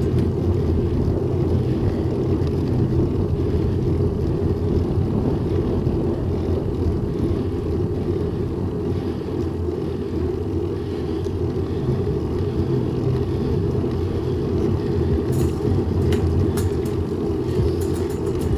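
Steady low rumble of wind on the microphone and road noise from a moving bicycle.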